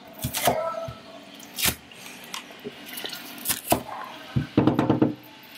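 Wooden spatula knocking and scraping against a stainless steel pot while sliced onions are stirred in oil, a handful of separate knocks with a louder clatter near the end.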